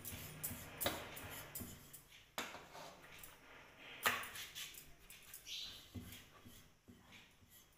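Wooden rolling pin rolling out chapati dough on a round wooden board: soft rolling strokes with scattered light knocks, the sharpest about four seconds in.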